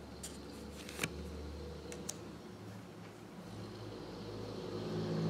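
Quiet room tone with a steady low hum, and two faint sharp clicks about one and two seconds in as a ringed paper flashcard is handled and flipped to the next card.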